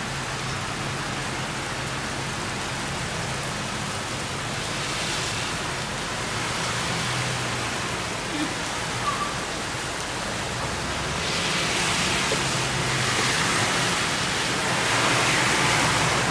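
Heavy rain falling steadily. In the second half, cars driving through the flooded street add a swelling, hissing swish of tyres through water.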